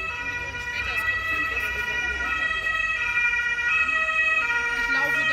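German two-tone emergency siren (Martinshorn) of a Red Cross ambulance on an emergency run, switching back and forth between two pitches and growing somewhat louder.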